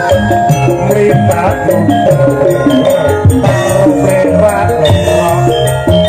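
Song played loud through a First Class FC-A4700DSP power amplifier and speakers, with rhythmic percussion and a gliding melody line.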